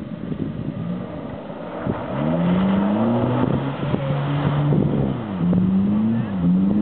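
Off-road 4x4's engine revving up about two seconds in, then pulling hard at steady revs, with two brief dips in revs near the end.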